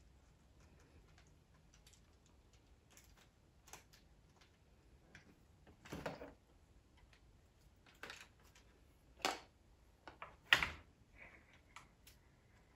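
Scattered plastic clicks and knocks from a Lego Technic pickup truck model being handled and its parts fitted back on, with a few louder knocks about six, nine and ten and a half seconds in, the last the loudest.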